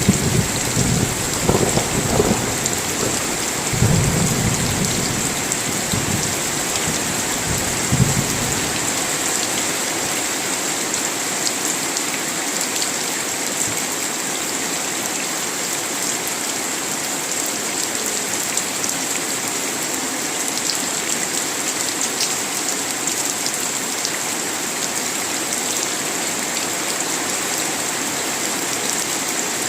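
Steady rain falling, with rolling thunder rumbling through the first several seconds in a few surges; the thunder dies away after about eight seconds and the rain continues alone.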